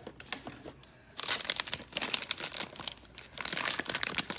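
A foil blind-bag wrapper crinkling as it is handled and worked open, in two bouts of dense crackling after a quieter first second.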